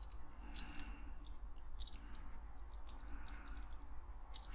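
Small metal parts of a die-cast toy car clicking and tapping irregularly as the baseplate and axle are handled and worked back into place.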